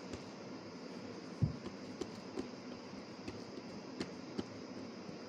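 Hand patting and pressing oiled parotta dough flat on a countertop: a few soft taps and one low thump about one and a half seconds in, over a steady background hiss.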